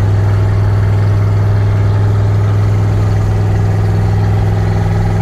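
Engine of a twin-turbo Ford F-100 running steadily at an even pitch, heard loud from inside the cab.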